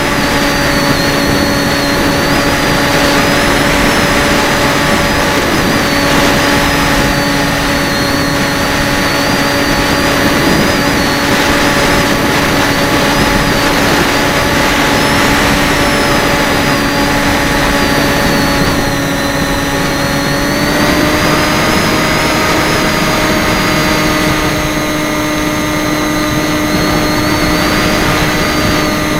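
FPV drone's electric motors and propellers whining at a steady pitch, which steps up slightly about two-thirds of the way through as the throttle rises.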